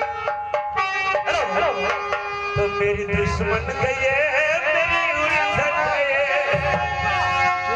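Live Nautanki folk-theatre music: steady held notes and drum beats, with a wavering, ornamented melody line coming in about a second in.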